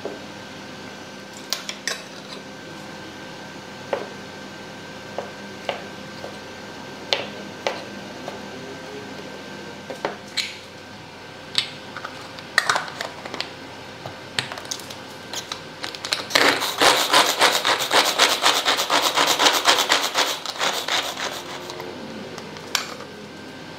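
Scattered light clicks and knocks of pickles and a plastic lid going into a clear plastic bowl, then a manual food chopper worked hard for about five seconds: a dense, rapid clatter of its blades whirling and chopping pickled cucumbers.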